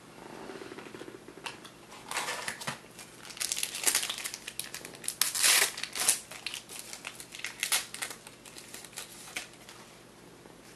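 Trading-card pack wrapper crinkling and tearing as the pack is opened, in a string of irregular crackles that is loudest near the middle.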